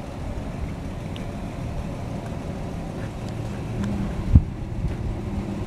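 Wind rumbling on the camera microphone, with a single sharp thump a little past four seconds in.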